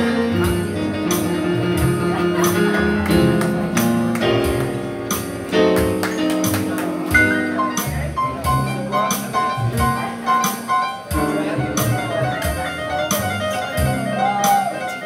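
Small jazz combo playing an instrumental break in a slow blues: a saxophone solo over upright bass and keyboard, with a light ticking keeping the beat.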